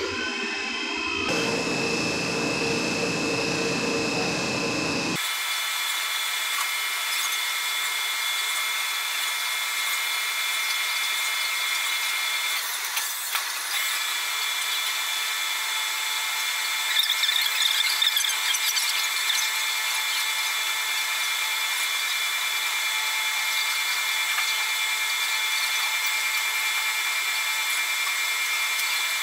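CNC vertical milling machine running its program, its spindle and end mill cutting a white plastic block. It makes a steady mechanical whine with several constant high tones over a rushing noise. The sound changes abruptly about five seconds in.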